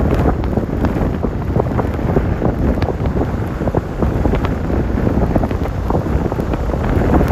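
Strong gusting wind buffeting the microphone, a heavy low rumble with many small ticks and taps scattered through it.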